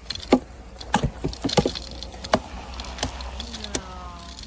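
Pieces of timber knocking and clattering together in irregular sharp wooden knocks as logs and boards are handled and thrown.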